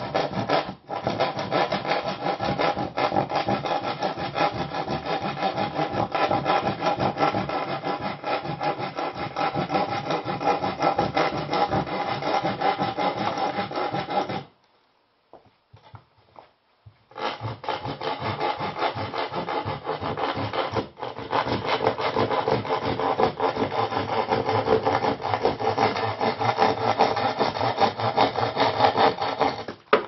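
Continuous rough scraping or rubbing, made of dense rapid strokes, in two long runs. It stops for about three seconds near the middle, then starts again.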